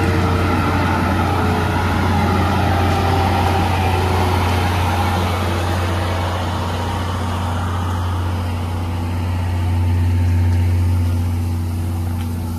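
Steady low rumble of a train, with a few faint tones slowly falling in pitch; the higher hiss dies away after about six seconds.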